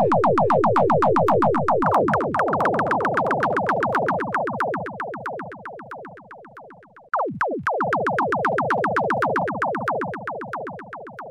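Synthesized bubbling effect: a rapid run of short blips, each falling in pitch, about ten a second. It fades away, then starts again loud about seven seconds in and fades once more.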